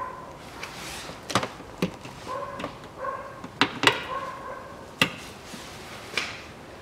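Plastic push clips snapping into the engine undertray of a Lexus CT200h: about six sharp clicks and knocks as they are pressed home by hand, with short high whines repeating between them.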